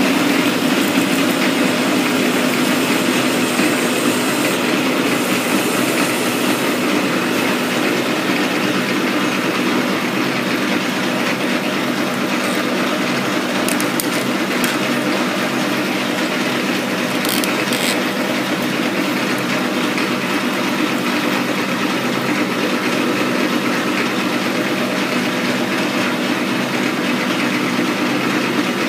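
Metal lathe running under power while its tool turns a metal R8 shank under coolant: a steady mechanical drone with a constant gear hum. A few short clicks come around the middle.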